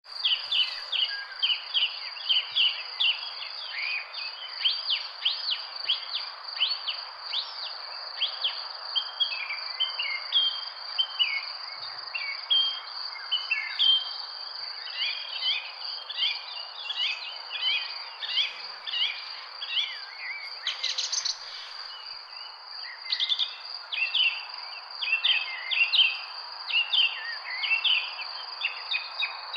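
Many birds chirping and calling in quick, busy bursts of short notes and fast down-slurred whistles. A steady high-pitched insect trill runs underneath without a break, over a soft background hiss.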